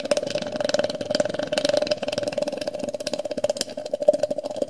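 Steam from a small homemade boiler being vented through a tube into a jar of cold water, the bubbles collapsing as they condense and making a loud, rumbling pulse made of rapid, irregular pops.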